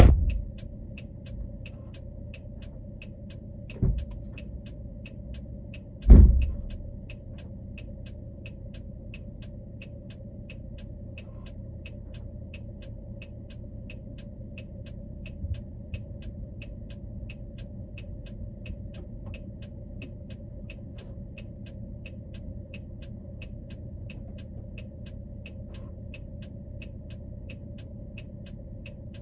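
Car cabin while driving: a steady low road-and-engine rumble, with the hazard-light flasher relay ticking evenly about three times a second. A few heavy thumps come in the first several seconds, the loudest about six seconds in, as a fallen tree branch strikes the car body.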